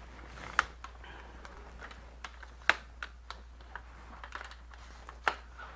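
Scattered light clicks and knocks from a tall camera tripod being handled, its legs and fittings tapping and clicking, with three sharper clicks: about half a second in, midway, and near the end.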